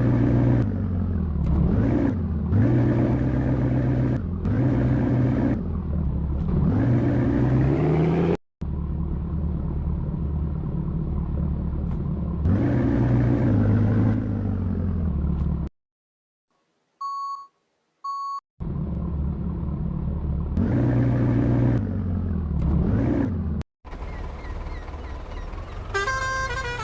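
Heavy-vehicle engine sound revving up and down over and over, broken by abrupt cuts. About two-thirds of the way through, a near-silent pause holds two short beeps, and near the end a multi-note horn starts.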